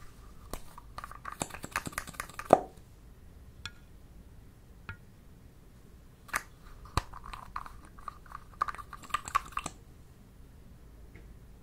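Small plastic dropper bottles clicking and clattering against each other as they are handled, in two bursts of quick clicks, the loudest about two and a half seconds in.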